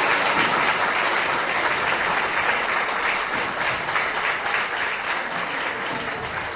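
Audience applauding, the clapping slowly dying away.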